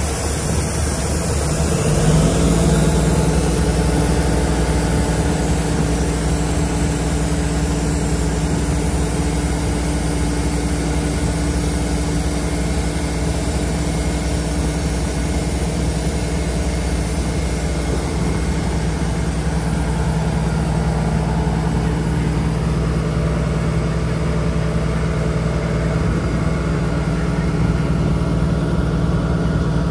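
Heavy truck diesel engine idling steadily, getting a little louder about two seconds in.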